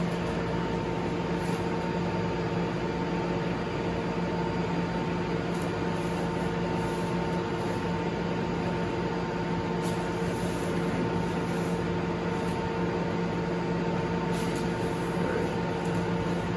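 A steady machine hum at one constant pitch, with no change in level.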